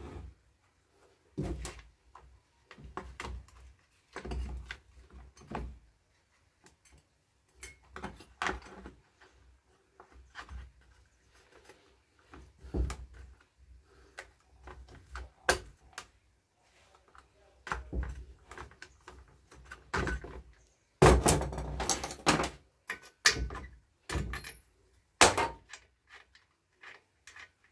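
Irregular knocks, clicks and plastic clatter of hands working on a chainsaw: its plastic top cover being fitted onto the saw body and handled on the workbench. The densest, loudest run of knocks comes about three-quarters of the way through.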